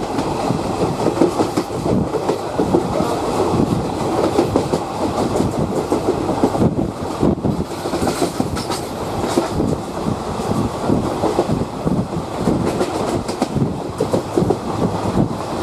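Passenger train hauled by a WAG5 electric locomotive, running on the track: a steady rolling rumble with irregular wheel clatter.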